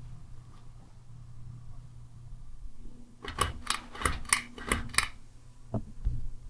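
Hampton Bay Quick Connect ceiling fan motor humming steadily, with a quick run of about seven sharp clicks around the middle and a couple more knocks near the end.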